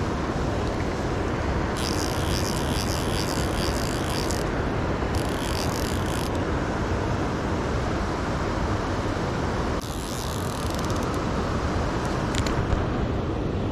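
Fast river water rushing steadily throughout, with a fly reel clicking in two spells, from about two to four and a half seconds in and again briefly around five to six seconds, as line is worked on a hooked salmon.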